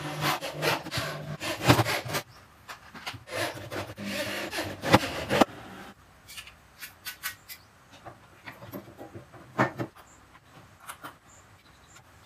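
Corded electric drill driving screws to mount a woofer in a speaker cabinet, the motor whirring in short runs with grinding and clicks as each screw seats. After about five and a half seconds it stops, leaving scattered knocks and clicks as the metal grille is handled and set on the cabinet.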